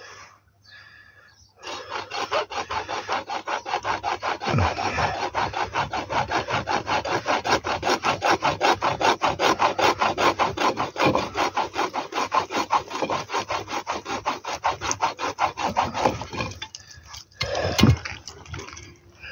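Hacksaw cutting through a metal water pipe in rapid, steady back-and-forth strokes. The strokes stop, and a few sharp knocks follow near the end, the loudest as the pipe is cut through and water sprays out.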